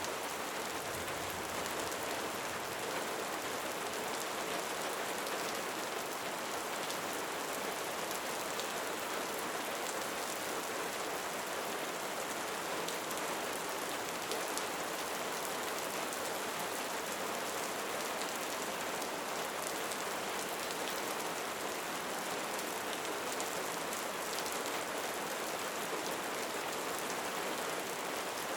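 Steady rain falling: an even hiss with a dense patter of drops that holds without change.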